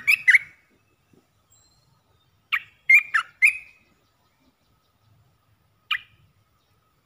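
Olive-winged bulbul singing in short phrases of quick, clear notes: one phrase ends just after the start, a phrase of four notes comes about two and a half seconds in, and a single note sounds near the end.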